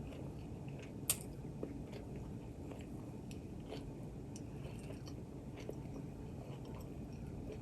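Close-up eating sounds: a person chewing and biting food, with many small scattered clicks and one sharper click about a second in, over a steady low background hum.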